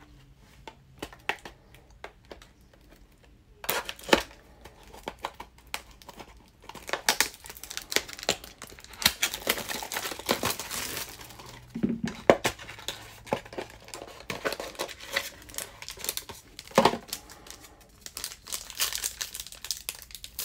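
Plastic wrap and foil trading-card packs being cut, torn open and crinkled by hand, a dense run of crackling with a few sharper snaps.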